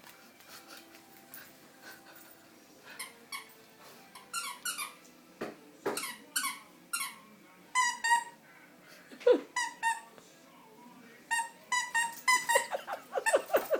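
A squeaky dog toy squeaking over and over as a puppy chews it, in short runs of quick squeals that grow busier from about four seconds in.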